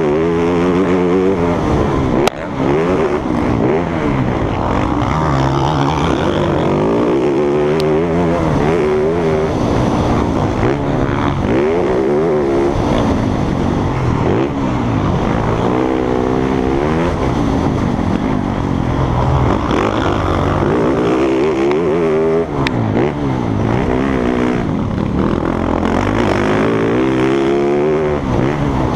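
Motocross bike engines racing round a track, their pitch rising under throttle and dropping back over and over, with more than one engine heard at times.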